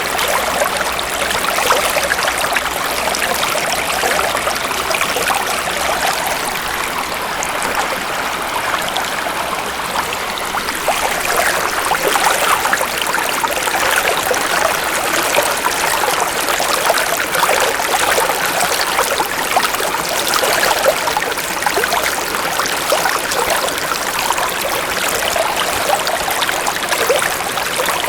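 A shallow stream running over stones, a steady rushing babble full of small splashes and trickles.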